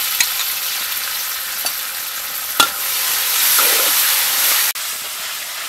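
Shallots, garlic and chili sizzling in a hot metal wok as fish sauce, sugar and oyster sauce are stirred in with a spatula. The spatula clinks sharply on the wok once about two and a half seconds in, the sizzle grows louder for the next couple of seconds as the sauce is stirred, then drops suddenly near the end.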